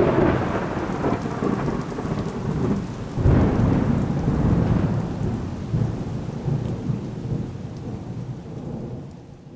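Thunderstorm: rain falling steadily under two long rolls of thunder, one at the start and a second about three seconds in, each rumbling away, the whole fading out near the end.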